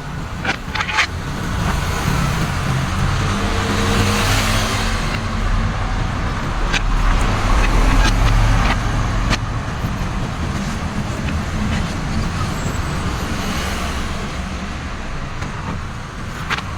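An engine running, growing louder toward the middle and then easing off, with a few sharp clicks.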